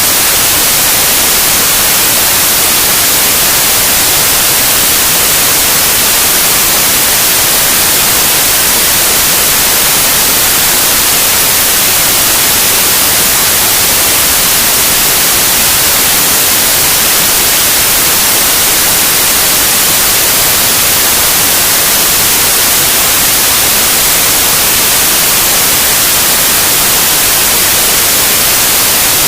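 Loud, steady white noise: an even hiss with no changes.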